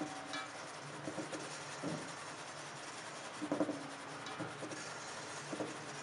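Flour being sifted through a round fine-mesh metal sieve: a soft steady rubbing of powder on the mesh, broken by about six light knocks as the sieve is tapped against a stainless steel bowl, which rings briefly after each. The loudest knocks come about halfway through.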